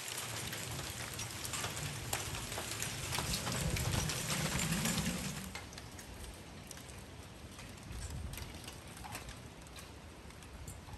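A hailstorm: hail and rain pelting down, a dense hiss peppered with sharp ticks of hailstones striking. It eases about halfway through to a quieter hiss with sparser ticks.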